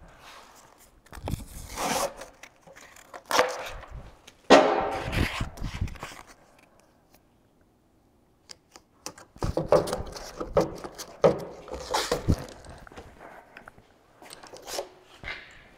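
Sandpaper being torn and peeled off a roll and handled onto the pad of a straight-line air sander: irregular tearing, crinkling and scraping noises, loudest a little over four seconds in, with a lull of about three seconds midway before more handling. The sander itself is not running.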